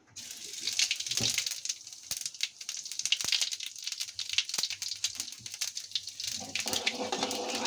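Cumin seeds sizzling and spluttering in hot oil in a metal kadai, a dense, steady crackle of tiny pops: the oil is hot enough for tempering (tadka).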